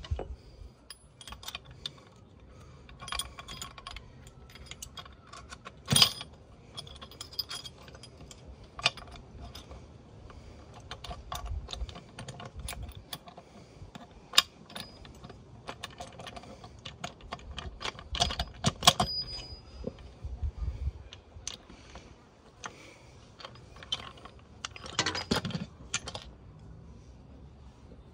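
Irregular small metallic clicks and clinks of the gears and shafts of a Suzuki RM85 gearbox being handled and fitted into the crankcase half, with a few sharper knocks.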